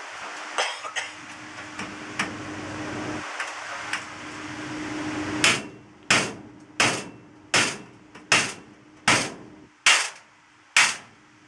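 Hammer blows on the food truck's sheet-metal wall at the cut-out for the exhaust fan. After a few light knocks, a steady run of about eight sharp, ringing strikes begins about halfway in, roughly one every three-quarters of a second.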